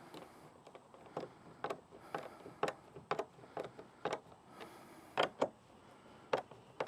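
A hand socket ratchet clicking as a bolt is snugged down by hand. The sharp clicks come roughly twice a second, with short pauses between the strokes.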